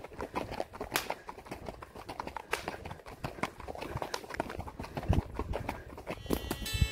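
Horse hooves beating on a dirt road under a ridden horse, an irregular run of dull knocks. Music comes in near the end.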